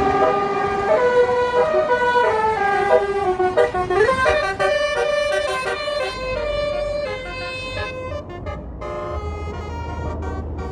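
Tour bus's Basuri telolet horn playing a melody of quick stepped notes, with a swoop in pitch about four seconds in and choppier notes towards the end. The bus's engine rumbles underneath.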